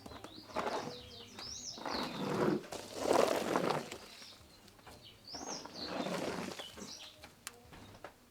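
Birds chirping in two short bursts of arched, rising-and-falling notes. Beneath them a louder noise swells and fades twice.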